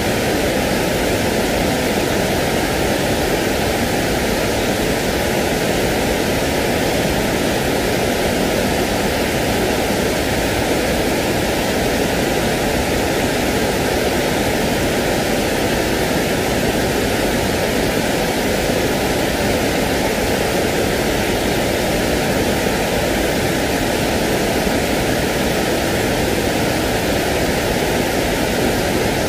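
Steady white-noise hiss for sleep, even and unbroken, with no rises, drops or separate sounds.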